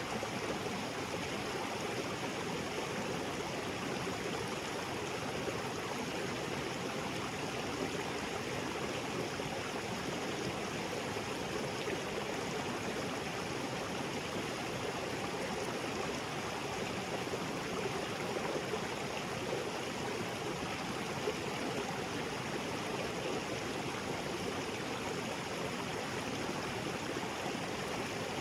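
Small waterfall spilling into a rocky jungle creek: a steady, even rush of falling and flowing water.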